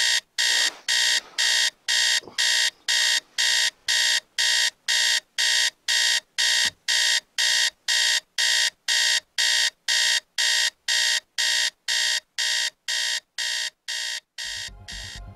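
Digital alarm clock beeping, short high electronic beeps at about two a second, getting a little quieter toward the end.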